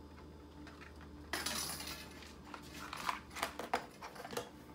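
Small metal parts clinking and rattling as 1/8-inch axle collars are rummaged out of their container, with a rustling rush about a second in and a string of light clicks after it.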